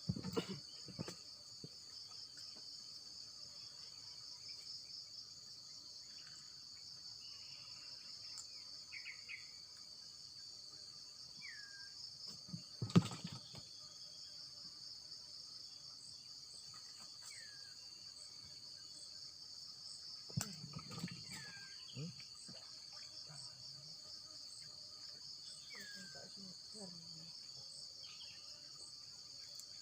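A steady, high-pitched insect chorus with a fine pulsing trill, with a few short falling bird chirps. A sharp knock about 13 seconds in, and a few soft thumps around 20 to 22 seconds.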